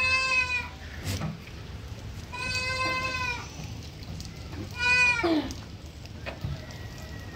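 Goats bleating three times, high-pitched calls of about half a second to nearly a second each; the third call slides down in pitch at its end.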